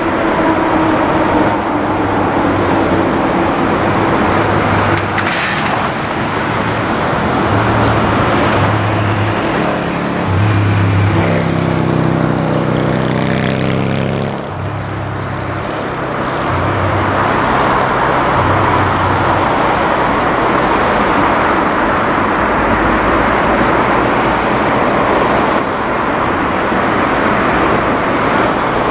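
Airbus A380-841's four Rolls-Royce Trent 970 jet engines running at taxi power, a loud steady jet noise with a faint whine.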